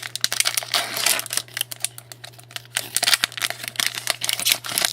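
Trading cards and their pack wrapper handled at close range: crinkly rustling with many quick irregular clicks as the cards slide and snap against each other, over a steady low electrical hum.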